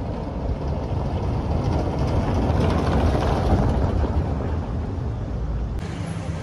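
Street traffic noise with a vehicle passing, swelling to a peak in the middle and fading again. Near the end it changes abruptly to different street ambience.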